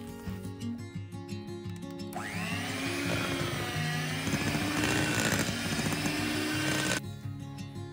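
Electric hand mixer beating cake batter: the motor starts about two seconds in and runs for about five seconds with a whine that wavers in pitch, then cuts off suddenly near the end.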